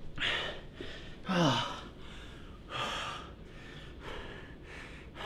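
A man breathing hard in three loud gasping breaths. The second, about a second and a half in, is voiced and falls in pitch, like a heavy sigh. Fainter breaths follow.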